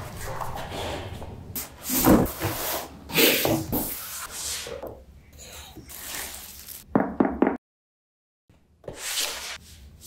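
Packaging being handled at close range: a padded fabric bag, plastic wrap and a boxed accessory rubbed, shifted and set down. It comes as irregular rustles, scuffs and crinkles with a few soft thumps. About three-quarters of the way through, the sound cuts out completely for about a second.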